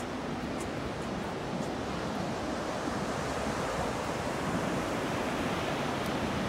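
Ocean surf breaking on the beach, a steady rush of waves that swells a little louder in the second half, with wind buffeting the microphone.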